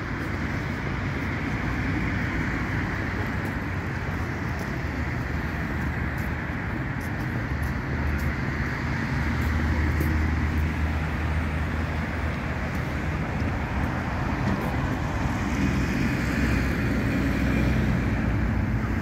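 Steady city road traffic: cars passing on a nearby street, with a low engine hum that swells about halfway through and again near the end.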